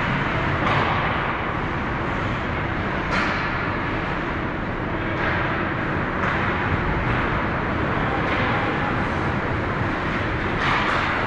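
Ice hockey rink during play: a steady rumble with repeated swelling scrapes of skates on the ice, and a sharp click about three seconds in.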